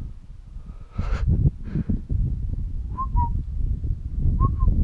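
Rough, uneven rumble of wind buffeting the camera microphone. Over it come two pairs of short whistled notes, one pair about three seconds in and one near the end.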